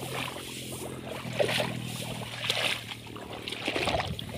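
Water sloshing and splashing in a few separate swishes about a second apart, over a faint steady low hum.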